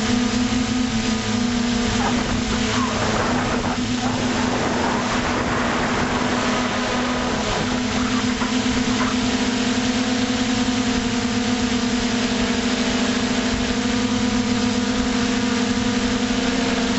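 Electric motor and propeller hum of an FPV drone, recorded by its onboard camera: a steady droning tone with overtones, over the rush of wind. The pitch shifts slightly about seven or eight seconds in as the throttle changes.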